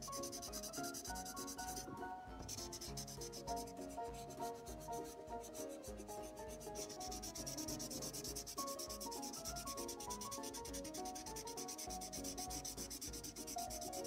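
Felt-tip water pen scrubbing over magic water-painting paper in quick back-and-forth scratching strokes, with a short pause about two seconds in.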